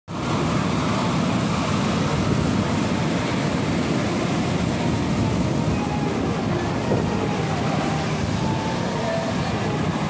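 Sea surf breaking and washing up a beach: a steady, continuous rush of waves, strongest in the low range, with wind rumbling on the microphone.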